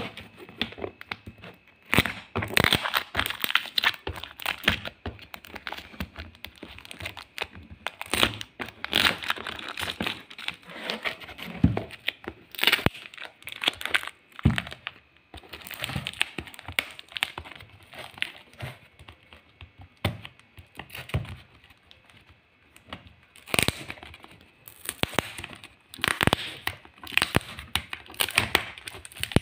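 Plastic courier mailer being handled, crumpled and torn open by hand: irregular crinkling and crackling of the plastic, quieter for a few seconds about two-thirds of the way through.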